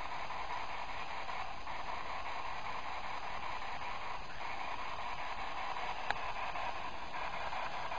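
Steady hiss of room tone and microphone noise, with a single sharp click about six seconds in.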